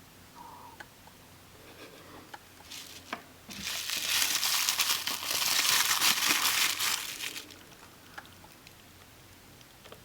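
Packaging being crinkled and crumpled in the hands, loudest for about four seconds in the middle, with a few small clicks and taps before it.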